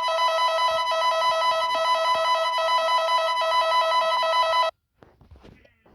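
Emergency-alert (EAS-style) alarm tone: a loud, steady chord of several electronic tones with a rapid trill, like a telephone bell, that cuts off abruptly about three-quarters of the way through.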